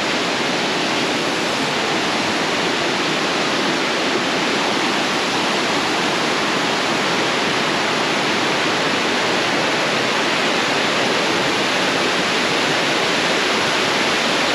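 Waterfall crashing into its pool: a loud, steady rush of falling water.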